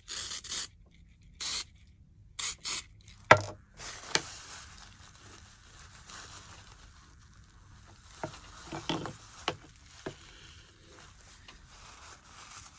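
Aerosol can of artificial snow spray hissing in about four short squirts over the first three seconds. A sharp knock follows, then faint rubbing and scraping.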